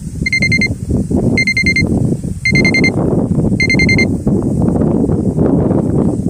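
An electronic alarm beeping four times, about once a second, each beep a quick trill of high pulses. Loud rustling and handling noise runs underneath.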